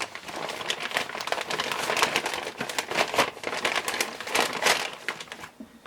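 A holster packaging bag being opened and handled: an irregular, crackly rustle of many small clicks that thins out shortly before the end.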